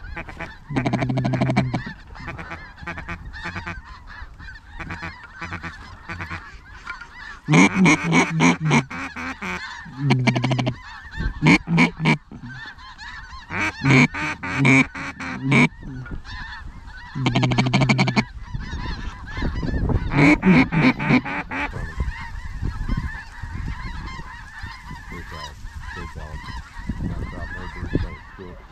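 Waterfowl calling from a large flock: about seven loud bursts of reedy calls close by, over the constant background chatter of many birds. The bursts stop a little after two-thirds of the way through, leaving only the chatter.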